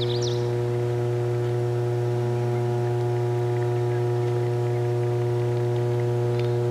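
Electrical substation transformer humming steadily: a deep, even mains drone with a stack of higher overtones. A few brief high chirps come at the very start.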